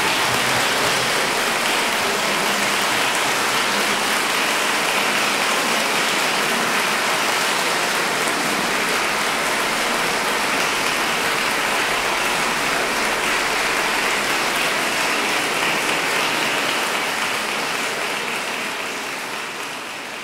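Large audience applauding steadily, fading out near the end.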